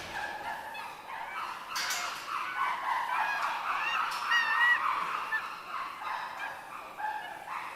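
A group of chimpanzees screaming, many high calls overlapping and rising and falling in pitch, loudest about halfway through.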